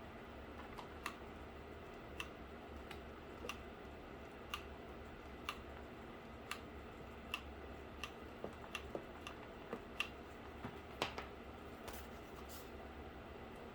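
Sharp, light clicks from hand tools at work on a cardboard model, about one a second, coming quicker and less evenly from about eight seconds in.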